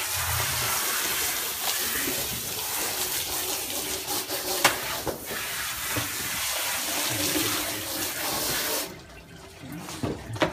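Water running from a hose onto a horse's long tail, rinsing sand out of it, with a steady hiss that stops about nine seconds in. There is a sharp click about halfway through.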